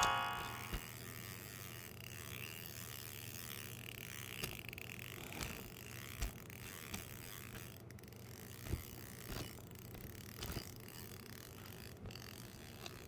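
Shimano Ocea Conquest 201PG baitcasting reel being handled: scattered light mechanical clicks and knocks, faint, over a low steady hum.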